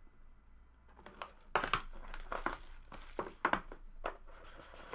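Crinkling and crackling of plastic or foil packaging handled in irregular bursts, as trading-card packs and cards are unwrapped.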